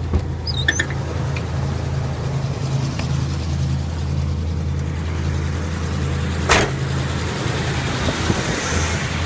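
1981 Buick Electra Limited's engine idling with a steady low drone. A few small clicks near the start and one sharp knock about six and a half seconds in.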